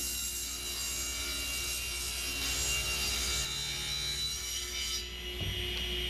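Table saw ripping an alder board, the blade cutting steadily. The cut ends about five seconds in, and the saw then spins on freely with a light knock as the wood is handled.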